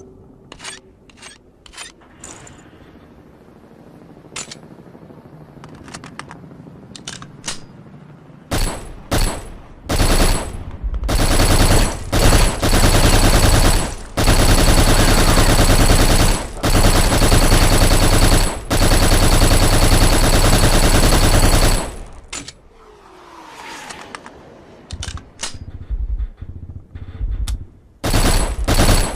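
Colt AR-15A2 carbine (5.56 mm) firing. A few single shots come first, then long bursts of rapid fire that stop abruptly about three-quarters of the way in, and more shots follow near the end. Light metallic clicks come in the first couple of seconds.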